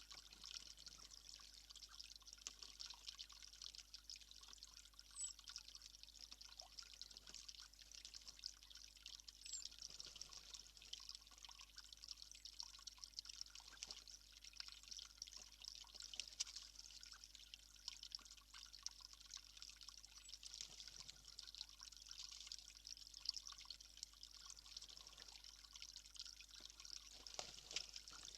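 Faint, steady trickling and pattering of water, a crackly hiss with no break.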